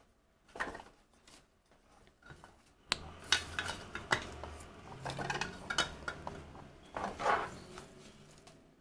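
Hard plastic parts of a turtle basking pier clacking and knocking together as the pylons and extensions are handled and fitted into the platform: a string of separate sharp clicks with some rubbing between them.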